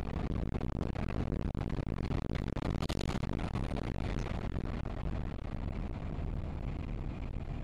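Steady road, tyre and engine noise inside a moving car, picked up by a dash camera, with many small knocks and rattles running through it.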